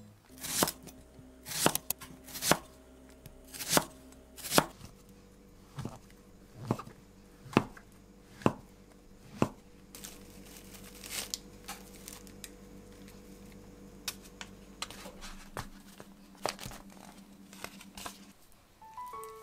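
Kitchen knife chopping on a wooden cutting board: sharp strokes about once a second for the first ten seconds. After that, soft tearing and rustling as a clump of enoki mushrooms is pulled apart by hand.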